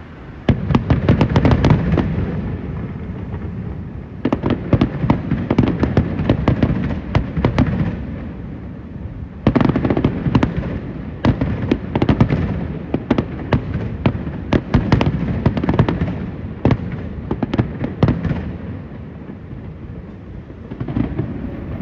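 Aerial fireworks finale: rapid bangs of shells bursting in the air, in dense barrages of a few seconds with short lulls between them, and a last short flurry near the end.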